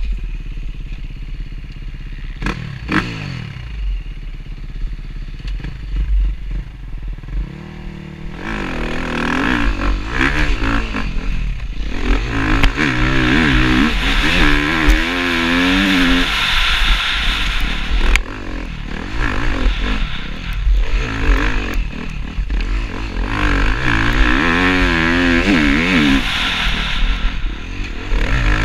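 KTM enduro motorcycle engine heard from the rider's helmet camera. It runs at low revs for several seconds, then from about eight seconds in revs hard, its pitch rising and falling again and again as the bike is ridden at speed.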